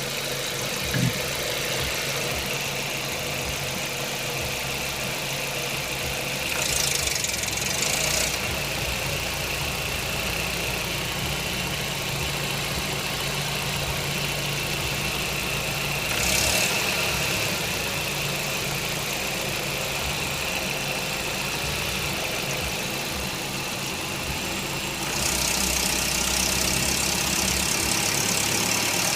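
1.8-litre 20-valve AGN four-cylinder petrol engine running at low revs with the knock the owner complains of at low rpm. The sound grows louder and hissier for a moment about seven and sixteen seconds in, and again for the last few seconds.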